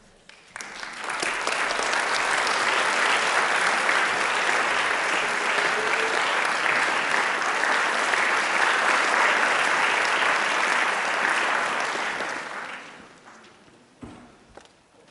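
Audience applauding, starting about half a second in, holding steady for about twelve seconds, then dying away. A single knock sounds near the end.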